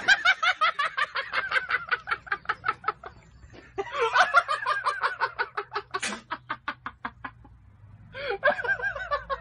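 A laugh sound effect after a joke's punchline: one voice laughing in rapid ha-ha pulses, in three bouts that each trail off.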